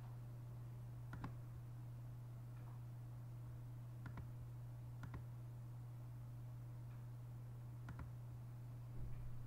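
Computer mouse clicks, single clicks a few seconds apart with one quick pair about five seconds in and a small cluster near the end, over a steady low hum.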